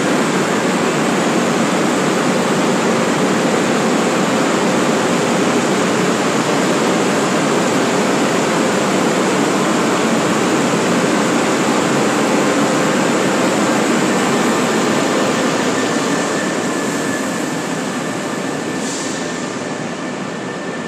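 SNCB double-deck passenger coaches, hauled by locomotive 1353, rolling along an underground station platform with a steady rumble of wheels on rails. The rumble eases off over the last few seconds as the train slows to a stop, with a thin, steady high whine coming in as it slows and a brief hiss near the end.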